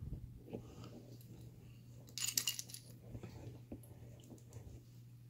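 Faint, light metal clicks and scrapes of a thin shim and small tools being worked into a pin-tumbler padlock, with a short burst of rattling clicks a little over two seconds in.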